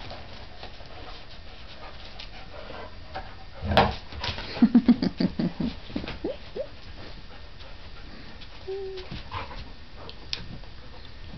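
Dogs vocalizing at play: one loud bark about four seconds in, then a quick run of about seven short low yips, two short rising whines, and a brief whine near nine seconds.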